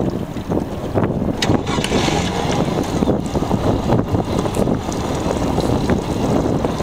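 Honda 200 hp four-stroke outboard running steadily at low rpm, about 1,000 on the tachometer, heard through heavy wind buffeting on the microphone.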